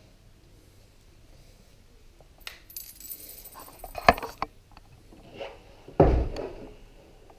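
Coins clinking and rattling down through the coin mechanism of a 1970 Unitra Fonica M-120M jukebox, with a sharp metallic clink about four seconds in, then a heavy thump about two seconds later.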